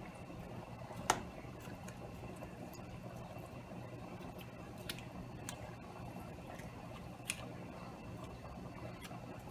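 Soft, faint handling of food as raw ingredients are mixed by hand in a skillet, with a few sharp clicks or taps against the pan, the loudest about a second in, over a steady low hum.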